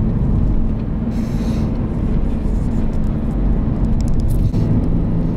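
Car engine and road noise inside the cabin of a car driving along a highway: a steady low rumble and hum. A brief hiss comes about a second in, and the engine note drops slightly near the end.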